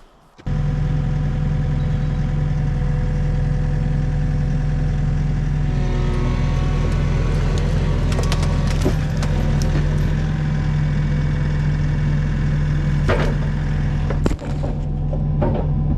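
Skid steer engine running steadily under load as the machine pulls itself out of a mud hole on a rope and snatch block; it starts abruptly about half a second in. A few sharp clanks come through the middle and near the end.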